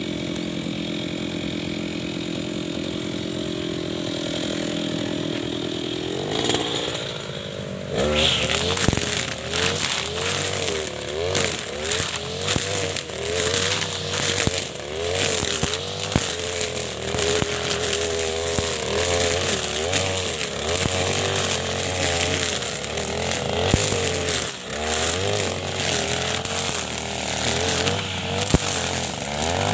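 Backpack brush cutter engine idling, then revving up. From about eight seconds in it runs at high speed with its nylon trimmer line cutting through dense weeds and woody shoots, the engine pitch dipping and rising over and over as the line takes load.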